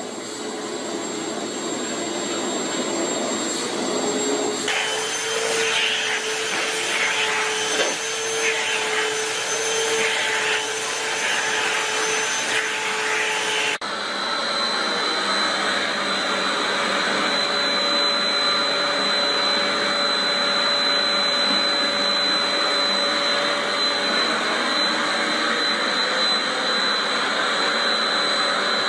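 Vacuum cleaners running as their nozzles are passed over cats' fur. The steady motor noise changes twice, about five and fourteen seconds in, as one vacuum gives way to another, and carries a high, steady whine through the second half.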